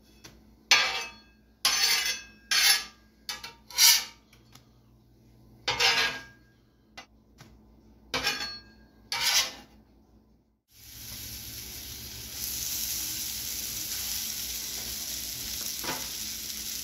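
A metal spatula scraping and tapping on a steel flat-top griddle in about ten short separate strokes while hamburger buns toast in butter. After a brief gap, slices of SPAM sizzle steadily on the hot griddle, growing a little louder soon after they start.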